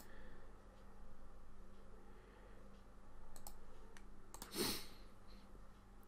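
Faint, scattered clicks of a computer mouse and keyboard, with a short breath-like whoosh about four and a half seconds in, over a faint steady electrical hum.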